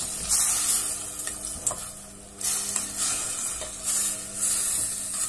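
Vegetables and chicken stir-frying in a stainless steel pot. The sizzle swells and fades about five times as a spatula turns them, with a few light taps of the spatula on the pot, over a steady low hum.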